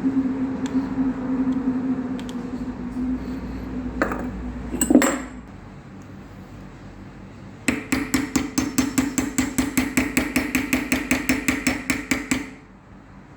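Metal tool work: a steady hum with a couple of sharp clicks, then a fast even run of metallic taps, about eight a second for some five seconds, that stops suddenly.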